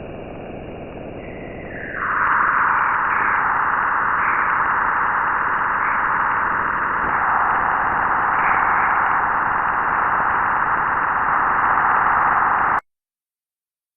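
Steady static-like hiss, getting louder about two seconds in and cutting off abruptly near the end.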